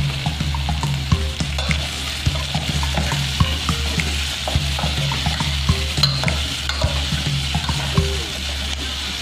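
Metal spoon stirring squash chunks and flaked fried fish in an aluminium pot, with many small clicks and scrapes of spoon on pot, while the contents sizzle. A steady low hum runs underneath.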